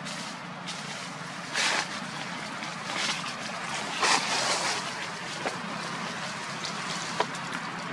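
Steady rushing outdoor background noise, with a few brief rustles in the dry leaf litter and a sharp click near the end.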